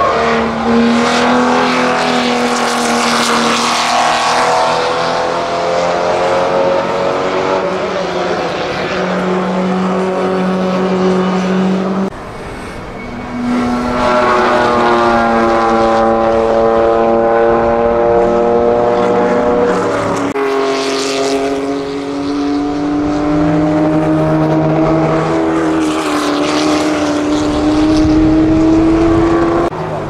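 1960s sports-racing cars going past at speed one after another, including a Ferrari 250 LM and a Jaguar E-Type. The engine notes rise and fall in pitch with each pass and each gear change.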